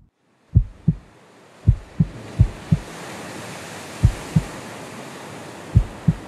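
Heartbeat sound effect: pairs of short low thumps, five pairs at uneven spacing, over a wash of sea-surf noise that swells up during the first few seconds and then holds steady.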